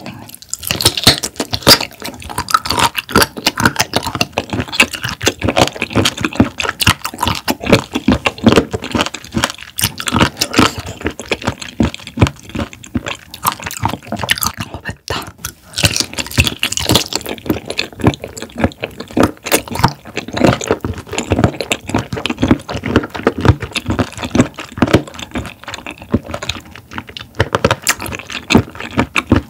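Close-miked wet chewing of raw shrimp: a dense, continuous run of sticky clicks and squelches, with one short lull about halfway through.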